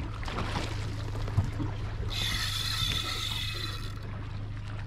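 Boat's outboard idling with a steady low hum, with water washing at the hull. About two seconds in, a bright hissing rush lasts about two seconds and then cuts off suddenly.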